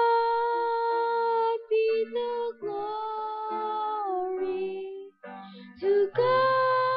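A boy singing a solo hymn into a microphone over instrumental accompaniment, holding long notes, with a short break about five seconds in before the next phrase.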